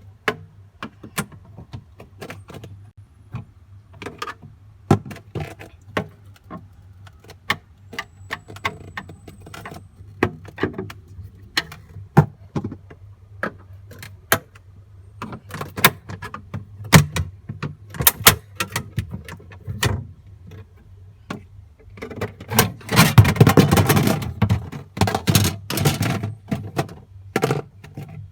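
Scattered clicks, taps and knocks of screws being taken out and a refrigerator's interior plastic panel being worked loose, with a dense rattling clatter lasting a couple of seconds about 23 seconds in, over a low steady hum.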